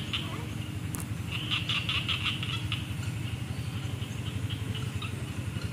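Frog calling: rapid trains of short pulsed calls, loudest in a burst about a second and a half in, then fainter series after, over a steady low hum. A single sharp click about a second in.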